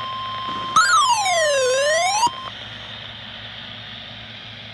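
Steady single-pitch weather-radio alert tone just above 1 kHz, typical of the 1050 Hz NOAA Weather Radio warning alarm, cutting off about two and a half seconds in. Over its middle, a louder tone glides down and then back up for about a second and a half. After that, only a low steady hum and hiss.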